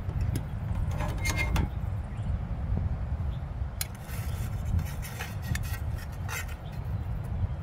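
A metal fork scraping and clinking against a frying pan as fried fish is lifted out, a few short clicks and scrapes spread through, over a steady low rumble.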